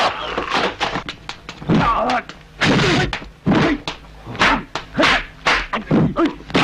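Dubbed kung fu film fight sound effects: a quick string of punch and block impacts, about one every half second, mixed with the fighters' shouts and grunts.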